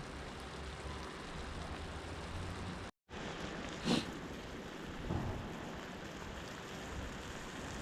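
Wood campfire hissing and crackling steadily, with a couple of sharper pops. The sound drops out completely for a moment about three seconds in.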